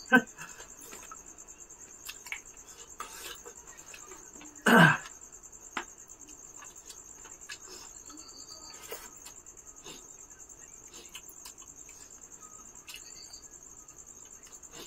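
Crickets chirping steadily in the night background, with small clicks and smacks of people eating rice and curry by hand from plates. About five seconds in comes one short vocal sound that falls in pitch.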